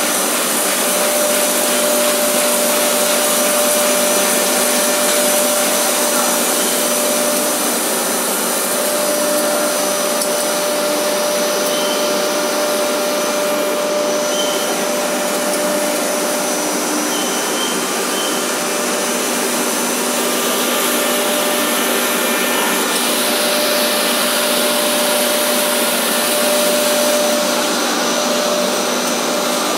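Double-screw AB co-extrusion blown film machine running: a steady whir and airy hiss from its extruder drives and cooling-air blower, with a couple of steady hum tones over it.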